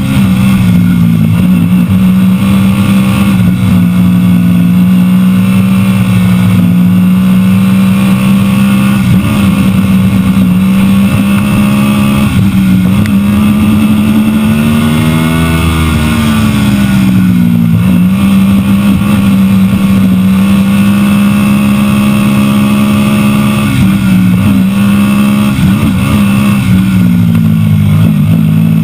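Small open-wheel race car's engine running under way at a mostly steady pitch, rising briefly about halfway through and then dropping, with a few shorter dips, including one near the end.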